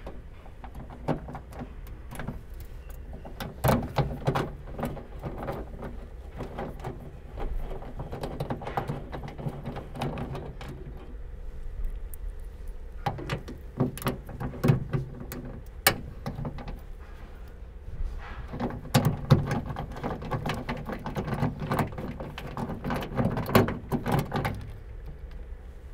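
Hand ratchet with a 10 mm socket and extension clicking in several bursts as the trunk-latch bolts are backed out, with metal clinks of the tool being handled.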